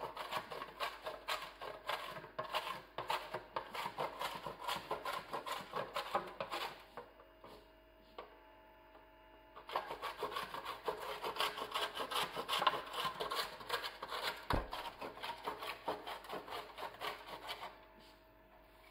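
A ball of chilled cocoa dough grated on the coarse side of a metal box grater: quick back-and-forth grating strokes in long runs, pausing for a few seconds in the middle and stopping near the end.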